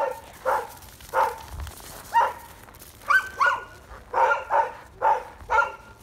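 West Siberian laika barking over and over: about a dozen short barks at an uneven pace, some in quick pairs.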